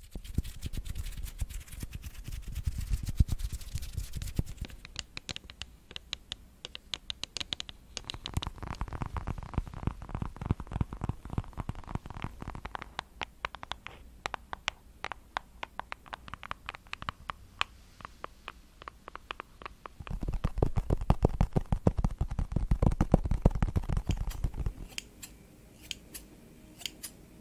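Close-miked ASMR trigger sounds in quick succession: scratching and rubbing, then long fingernails tapping rapidly on a small white block. Near the end, scissors snip through a wig's hair in a few sharp clicks.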